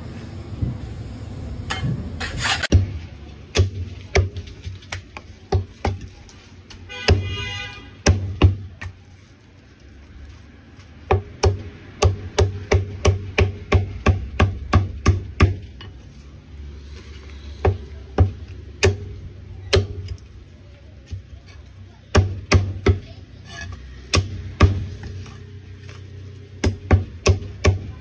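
Cleaver chopping through roast poultry and striking a thick wooden chopping block, in runs of quick strokes of about four a second with pauses between them, over a steady low hum.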